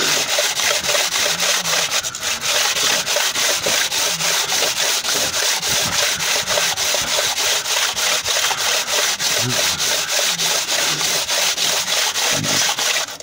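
Coarse sandpaper rubbed by hand in quick, even back-and-forth strokes over a Morris Minor's cast-iron cylinder head face, a steady loud scratchy hiss. The head is being cleaned of old gasket residue after a blown head gasket.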